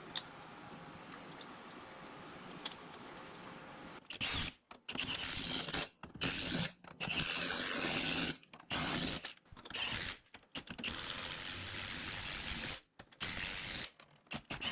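Ratcheting metal mechanism working in short stretches that stop abruptly, with only faint clicks in the first few seconds.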